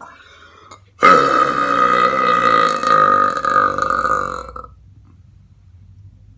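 A person letting out one long, loud belch, starting about a second in and lasting about three and a half seconds at a fairly steady pitch.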